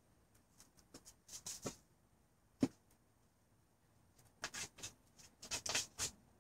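A chicken scratching and pecking in dry fallen leaves and wood shavings: short scattered rustles, one sharp tap about two and a half seconds in, and a denser run of rustling near the end.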